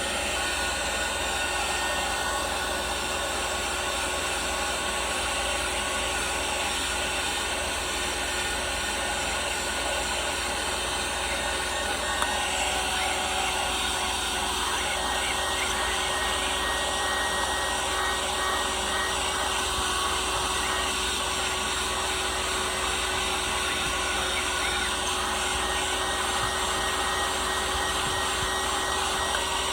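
Hot-air blower running steadily, heating the edges of a phone's back glass to soften the adhesive, with a faint steady hum in its blowing. A small click about twelve seconds in.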